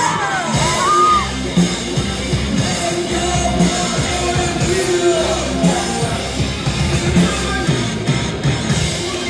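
A rock band playing live with a steady drum beat, bass and singing, recorded loud from the audience.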